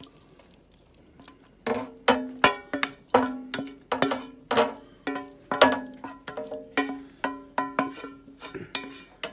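Background music of plucked notes, about two a second, beginning a second and a half in.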